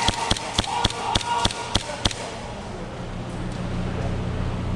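Airsoft guns firing a rapid string of sharp shots, about three to four a second, stopping about two seconds in, over a steady low hum.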